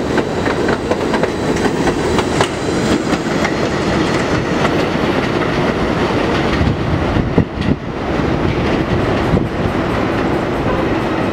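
New York City Subway 7 train cars running on elevated track: a steady loud rumble with the wheels clattering over rail joints. The noise dips briefly about seven and a half seconds in.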